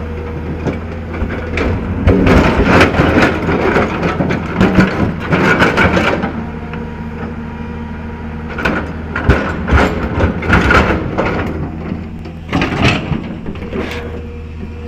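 L&T PC200 hydraulic excavator's diesel engine running steadily while its bucket scrapes and knocks against rock and stones, in clattering spells with a quieter stretch in the middle.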